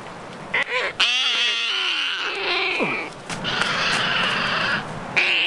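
A bird giving harsh, raspy squawks: a short one about half a second in, then two drawn-out screeching calls of a second or two each, and another starting near the end.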